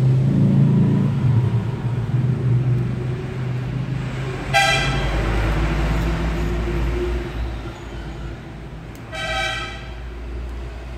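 Traffic noise: a low engine rumble that eases off in the second half, with two short vehicle horn toots, one about halfway and one near the end.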